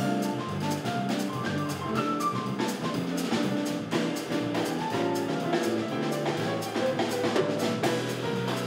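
Jazz trio playing live: a grand piano plays runs of notes over a drum kit keeping a steady beat on the cymbals.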